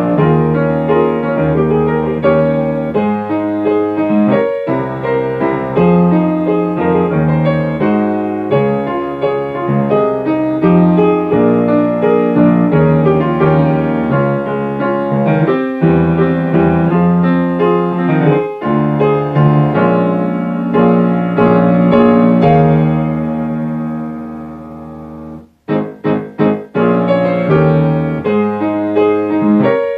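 Piano playing an accompaniment of flowing chords. About 25 seconds in it softens to a brief pause, then several short struck chords come before the playing picks up again.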